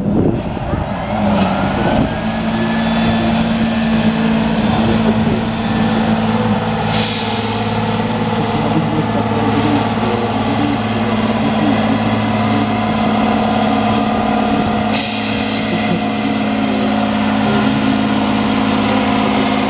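Tatra 813 8x8 truck's diesel engine working hard under load as it climbs a steep dirt slope, a steady deep drone. Two short bursts of hiss come about seven and fifteen seconds in.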